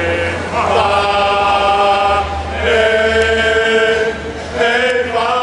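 A group of voices chanting in unison in long held notes, breaking off briefly about every two seconds before the next drawn-out line.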